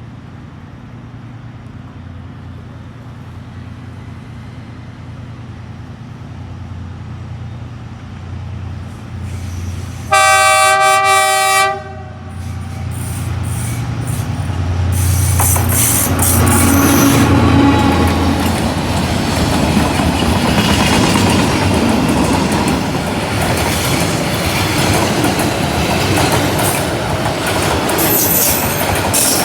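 D19E diesel-electric locomotive approaching, its engine hum growing louder, then one horn blast of nearly two seconds about ten seconds in. Its freight train follows, passing with loud rumbling and wheels clattering over the rails, and a brief high wheel squeal near the end.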